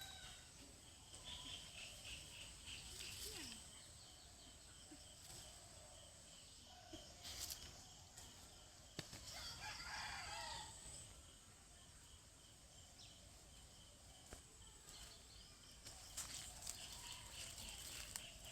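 A rooster crowing faintly, one wavering crow about ten seconds in, over a steady high-pitched hum with a few sharp clicks.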